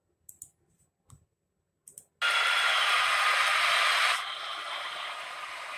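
Near silence with a few faint clicks, then a sudden loud, even hiss-like noise starting about two seconds in, which drops to a lower level about four seconds in.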